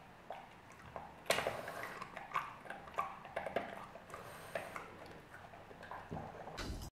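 French bulldog eating from its bowl: irregular chewing and crunching with sharp clicks.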